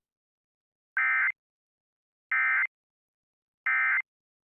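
Emergency Alert System end-of-message signal: three short, identical bursts of SAME digital data tones about a second apart, marking the end of the alert.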